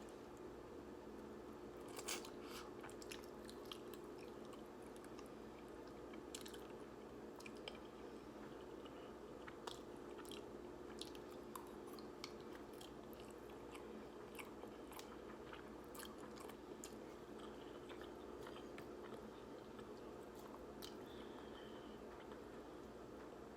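Close-miked chewing of instant ramen noodles: soft, scattered wet mouth clicks and bites, the sharpest about two seconds in, over a faint steady hum.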